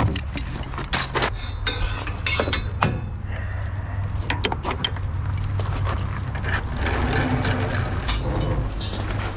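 Metal clicks and knocks of hand tools working on a heavy steel skid plate under a crawler loader, most of them in the first few seconds, over a steady low rumble.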